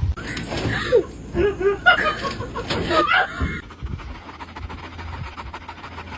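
A dog making a run of short, squeaky vocal noises and panting, eager for its ball to be thrown.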